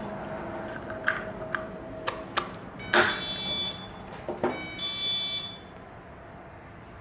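A GY6 carburetor being handled and worked on by hand: a string of clicks and knocks from small parts and tools, the loudest about three seconds in, with two short high-pitched squeaks around three and five seconds in.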